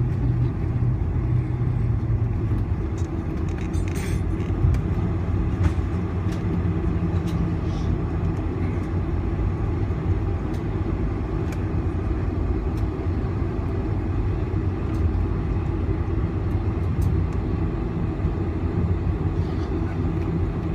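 Cabin noise of a Boeing 747-400 rolling out and slowing on the runway after touchdown, spoilers up: a steady low rumble from the engines and the wheels on the runway, with a few faint clicks.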